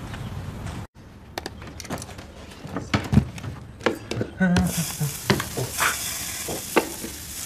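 Metal tongs clicking and scraping, then a steady sizzle like sausages frying on a hot grill sets in about halfway through, with more tong clicks over it.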